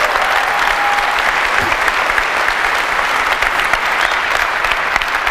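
Large keynote audience applauding steadily.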